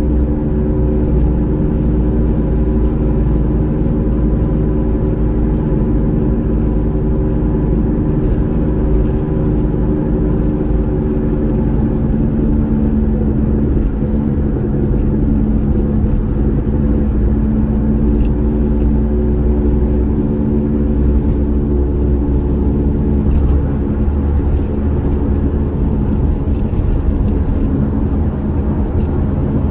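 Car cabin noise while driving: a steady engine hum over low road rumble, heard from inside the car.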